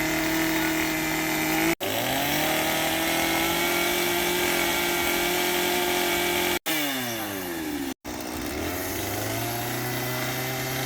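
Gas chainsaw running at high revs while carving wood, dropping back to a lower idle near the end, with three brief dropouts.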